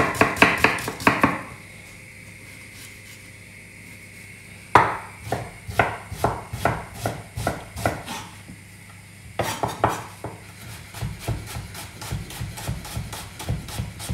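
Chef's knife dicing an onion on a wooden chopping board: quick, even knife strikes on the board, about three or four a second, in three runs with short pauses between them.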